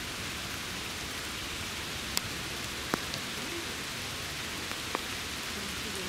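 Steady rain falling through woodland, an even hiss, with a few sharp clicks about two, three and five seconds in.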